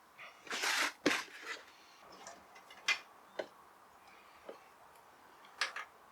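Metal hand tools working the bolts on a small motorcycle engine's clutch cover: a short rasp about half a second in, then a string of separate sharp clicks and clinks.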